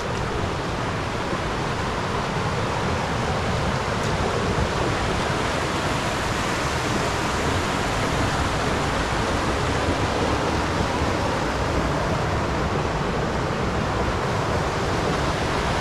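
River rapids: shallow water rushing over rock ledges and around boulders, a steady, even rushing.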